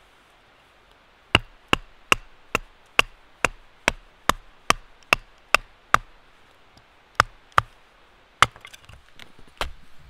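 Batoning: a short log knocking on the spine of a large knife to split a stick of firewood. There are a dozen sharp knocks at about two and a half a second from just over a second in, a short pause, then four more spaced knocks.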